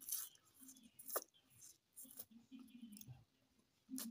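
Close-up mouth sounds of someone eating fried instant noodles: a slurp as a forkful is sucked in, then chewing with wet mouth clicks. There is a sharp click about a second in and another near the end.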